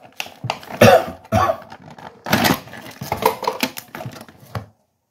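Plastic blister packaging crackling and snapping as it is pried off a diecast car's cardboard card, in a quick run of sharp clicks that stops shortly before the end.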